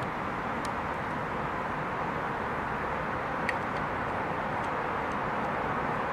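Steady background hiss with a few light clicks of small metal sewing-machine parts being handled, the sharpest about three and a half seconds in.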